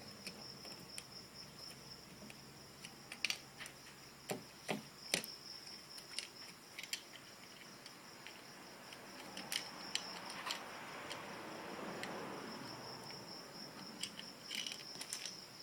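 Plastic Lego bricks clicking and rattling as they are handled and pressed together: scattered sharp clicks, with a softer rustling stretch about two-thirds of the way through. A steady high-pitched chirring runs underneath.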